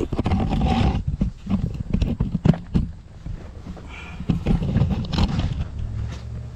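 A man clambering out of a dirt trench onto the edge of a concrete slab: irregular scuffs, knocks and effortful breaths, over heavy low rumble from handling and wind on a chest-worn camera's microphone.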